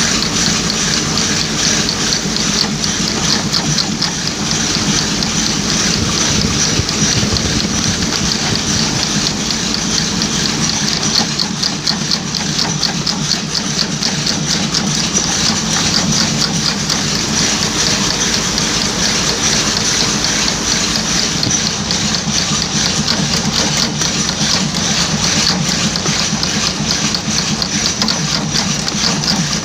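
A machine running steadily, with a fast, even clatter that keeps the same pace throughout.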